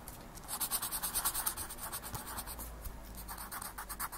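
A black coloured pencil scratching on paper in quick, rapid back-and-forth strokes as a drawing's tail is shaded in. The strokes ease off about two and a half seconds in and start again near the end.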